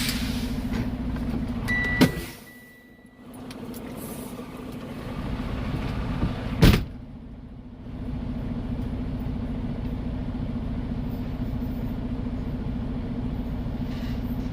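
Semi-truck's diesel engine running steadily under way, a constant drone heard from inside the cab. A sharp click comes about two seconds in and another about seven seconds in, each followed by a brief dip in the sound.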